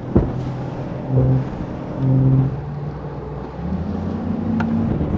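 Bass boat's outboard motor running, swelling twice and then rising in pitch about three and a half seconds in as the boat gets under way.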